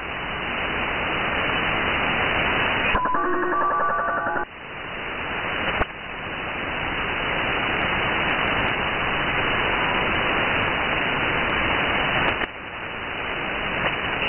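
Shortwave receiver hissing with band static in upper-sideband mode as it steps between frequencies. About three seconds in, a brief burst of several stepped tones comes through: the shortwave oddity called the Japanese Slot Machine, XSL.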